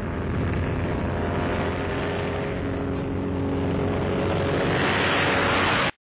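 The Abrams Explorer's pusher-propeller piston engine running hard as the plane dives toward the camera, growing louder toward the end. It cuts off suddenly near the end.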